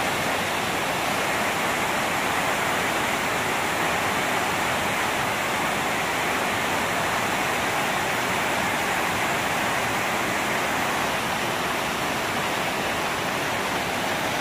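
Whitewater rapids of a fast mountain river, a steady loud rushing of water pouring over boulders.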